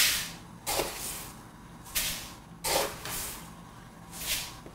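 A metal ladle working in a wok of water where pork ribs are being blanched, making five short, hissy swishes spaced unevenly across a few seconds.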